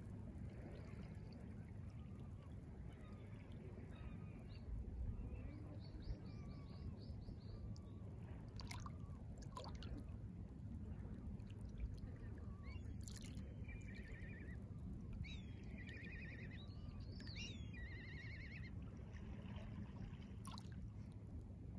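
Small waves lapping gently at the shore of a calm bay, over a low steady rumble. Several short trilled bird calls come through, once near a quarter of the way in and in a cluster in the second half.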